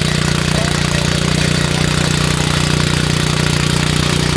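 Oshima XD1 mini tiller's small engine running steadily under load as its tines work dry, grassy soil.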